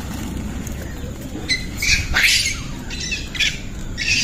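A monkey squealing: a run of short, high-pitched calls that starts about a second and a half in, loudest about two seconds in.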